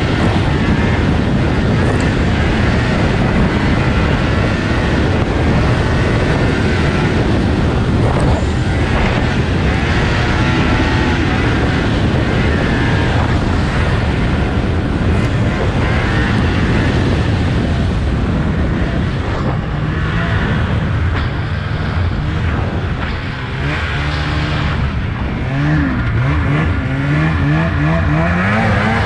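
Two-stroke snowmobile engine running hard under throttle, heard from the sled itself along with track and wind noise. Its revs swing up and down over the last several seconds.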